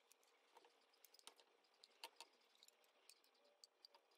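Near silence with faint, scattered light clicks, a few each second.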